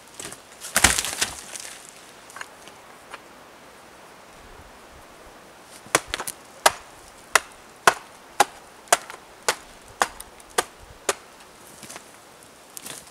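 A hatchet chopping into a birch log: about ten sharp strikes, roughly two a second, starting about six seconds in. Earlier, about a second in, a carried log thuds heavily onto the ground.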